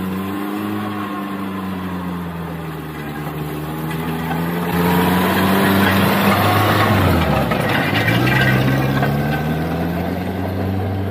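Engine of a small homemade rail car running and revving, its pitch drifting up and down, dropping sharply about seven seconds in and then climbing again; it grows louder from about the middle.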